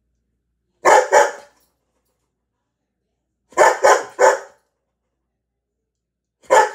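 A curly-coated dog barking from inside a wire crate, pawing at the door, in clusters of two or three loud barks a few seconds apart. It has just been left alone in the crate.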